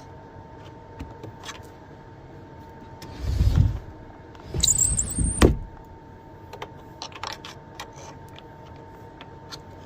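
Latch pin pulled and the RV dinette's under-seat cabinet door worked open by hand: a few light clicks, a low rumbling scrape about three seconds in, then a louder scrape with a high squeal a second later.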